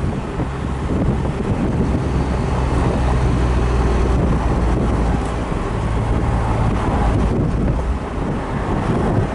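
1969 Mercedes-Benz 280SL's fuel-injected 2.8-litre inline-six running steadily while the open car drives along, heard from the driver's seat with wind rushing over the microphone.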